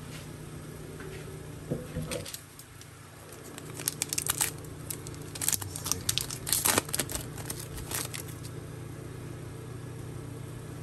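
Shiny foil wrapper of a Topps Chrome Cosmic baseball card pack being torn open by hand. There is a light knock about two seconds in, then a run of crinkling and tearing from about four to eight seconds in.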